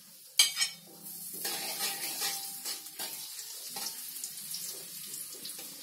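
Sliced garlic sizzling in hot oil in a steel wok: a sharp clack of a metal spatula against the plate, then about a second and a half in a steady hiss of frying sets in, with light scrapes and taps of the spatula.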